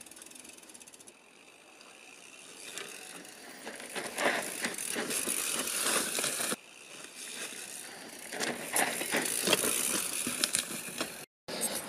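Mountain bike ridden on a dirt trail: tyres crunching over dirt and debris with dense clicking and rattling from the bike, building up from about two seconds in. The sound breaks off abruptly about halfway through and again near the end.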